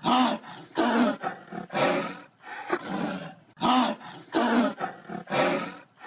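Animal roaring: a quick series of about seven loud roars, each under a second long, one after another.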